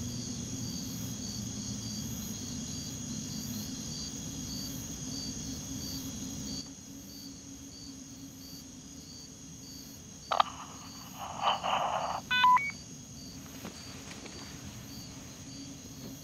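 Crickets chirping steadily, about two chirps a second, over a quiet night-woods background that drops quieter about six seconds in. About ten seconds in, a handheld walkie-talkie clicks, hisses with about a second of static, then gives a short burst of electronic beeps.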